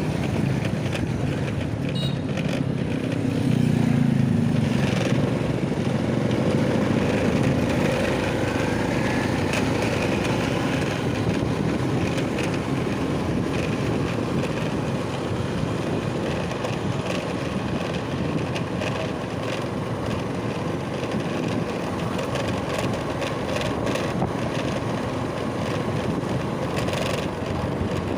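A vehicle engine running steadily on the move, with wind noise on the microphone.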